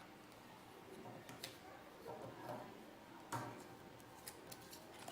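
Faint handling noise of craft work with popsicle sticks, paper and a hot glue gun: a few scattered light clicks and taps, the sharpest one about three seconds in and several small ticks near the end.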